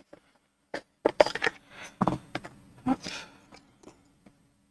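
Plastic screw-top jar of gel eye patches being opened by hand: a run of sharp clicks and crackly scraping as the lid is twisted off, between about one and three and a half seconds in.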